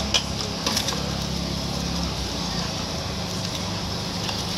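Steady low roar of a gas burner under a pot of boiling water, with a few sharp metallic clinks from a wire noodle strainer near the start. The low rumble drops about two seconds in.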